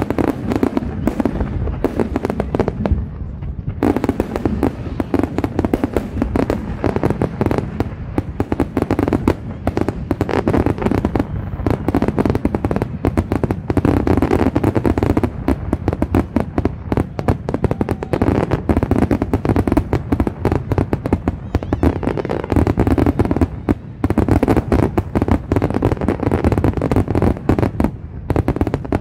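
Fireworks display: a loud, dense barrage of rapid bangs going off without a break, easing briefly about two to four seconds in before building back up.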